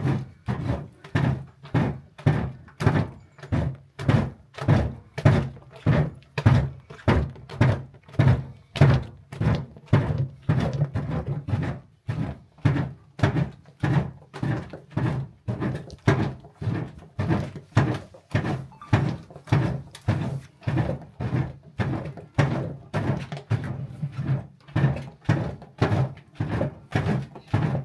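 A long wooden stick beating thick white halva mixture in a large metal pot: a steady run of dull thunks, about two a second.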